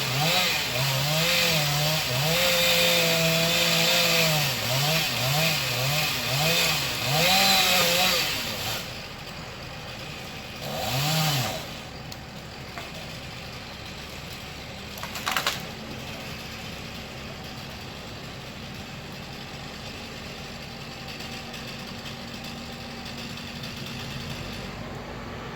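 Two-stroke chainsaw running loud for about eight seconds, its pitch dipping and rising as it works through the wood, then one short rev about eleven seconds in. A brief sharp crack comes about fifteen seconds in, followed by a quieter steady low hum.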